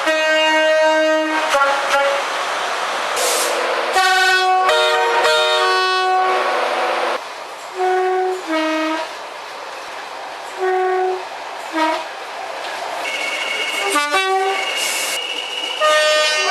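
Train horns sounding in a series of separate blasts, mostly two-tone changes between a high and a low note. The longest is a chord of several notes about four seconds in. Short paired toots follow, with more blasts near the end, where a steady high tone joins in.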